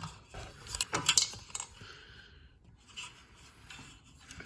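Handling noise: a cluster of light clinks and clicks about a second in, then quieter rubbing and rustling.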